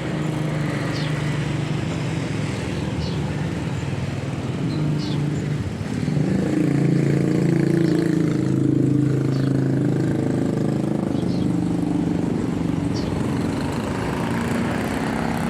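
An engine running steadily, growing louder about six seconds in and easing off again after about ten seconds, with faint short high chirps every second or two.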